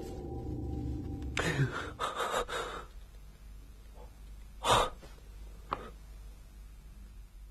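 A person's gasps and breaths: a few short breaths about a second and a half in, then one sharp gasp near five seconds.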